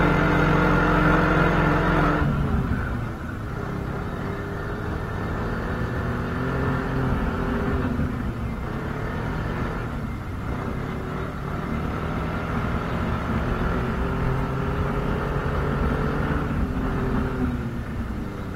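Snowmobile engine running while riding, louder for the first two seconds or so, then quieter with its pitch wavering up and down.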